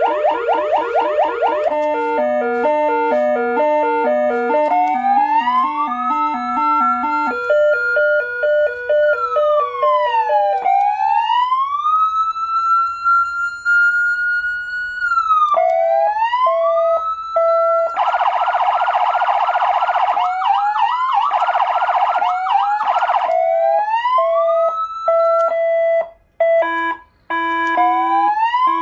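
SA830 400 W electronic siren amplifier sounding through its siren speaker and cycling through its tones. It goes from a fast yelp into stepped hi-lo two-tone patterns, then slow wail sweeps rising and falling, another fast yelp, and a hi-lo pattern near the end, with a brief cut-out between tones.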